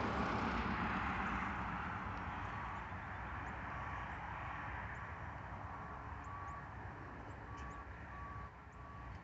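Hi-rail dump truck on the railroad track, its backup alarm giving a steady series of faint beeps over the louder rumble of the truck running, which slowly fades.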